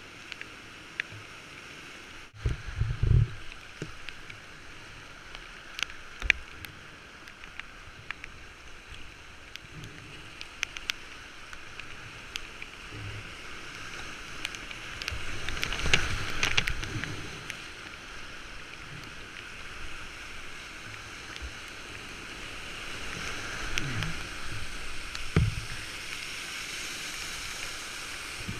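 Whitewater rapids rushing steadily around a C-1 whitewater boat running the rapid, with scattered sharp clicks. Low thuds come about three seconds in and twice near the end, and the water swells louder around the middle.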